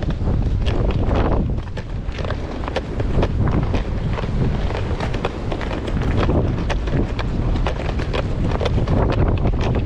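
Strong, gusty wind buffeting the microphone: a heavy low rumble with constant crackling bursts.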